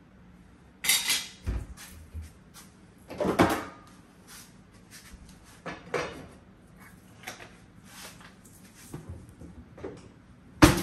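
Kitchen clatter while cooking: a handful of separate knocks and clunks, like cupboards, containers and utensils being handled. The loudest comes about three seconds in, and there is another near the end.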